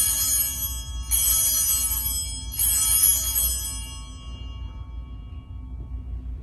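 Altar bells rung three times at the elevation of the consecrated host, marking the consecration. There are three shakes of bright ringing about a second and a half apart, each fading, the last ringing away over a couple of seconds.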